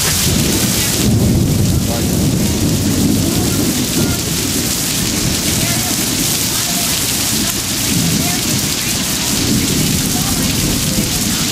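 Hurricane wind and heavy driving rain: a steady, loud, deep rumble of wind buffeting the microphone under the hiss of the rain.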